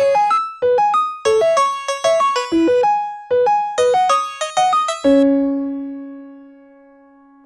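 A ringtone melody in an electric-piano sound: short, quick notes in repeating phrases, then a final low note about five seconds in that rings on and fades away.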